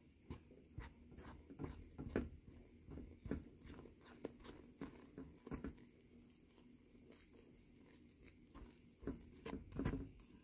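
Spatula stirring a flour and milk dough mixture in a stainless steel bowl: faint, irregular scrapes and soft taps.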